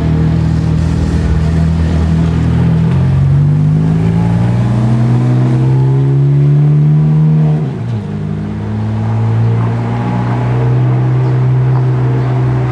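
Ferrari F430 Scuderia's V8 engine pulling away: the note climbs steadily as it accelerates, drops sharply at an upshift about eight seconds in, then runs on at a steady pitch.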